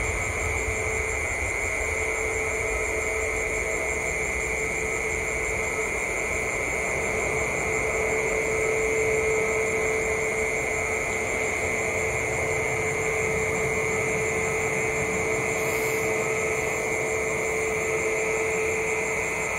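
Distant airliner jet engines running steadily: a hum with a held high whine.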